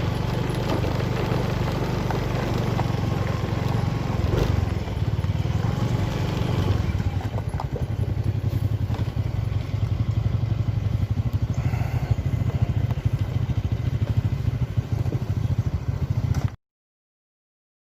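A motor vehicle's engine running steadily, with some clattering over it; it cuts off suddenly near the end.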